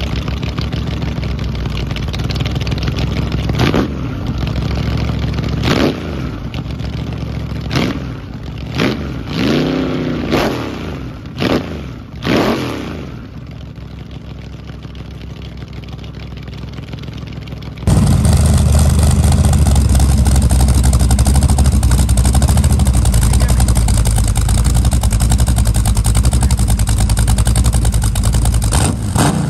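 Freshly built V8 engine running on an engine run stand, with a series of quick throttle revs between about 4 and 13 seconds in. After a sudden cut a little past halfway, a V8 on the stand runs louder and steady.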